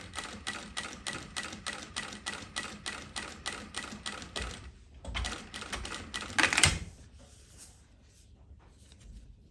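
Jack walking-foot industrial sewing machine stitching slowly and steadily through 11 layers of thick marine vinyl without trouble, about five stitches a second. It stops about four and a half seconds in, followed by a thump and a brief loud scrape a little later.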